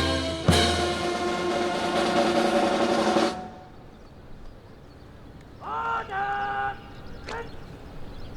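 Band music for an honour salute ending on a held chord over a snare drum roll, cut off about three seconds in. A short pitched shout follows near the six-second mark.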